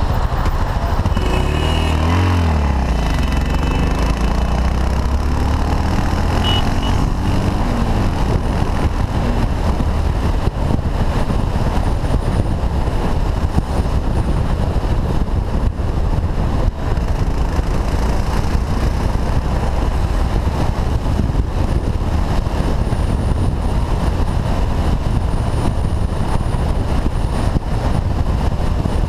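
Motorcycle engine heard from the rider's helmet camera, with wind rushing over the microphone. In the first few seconds the engine's pitch dips and then climbs again, as it does in a gear change and acceleration; after that, steady wind and road noise at cruising speed cover it.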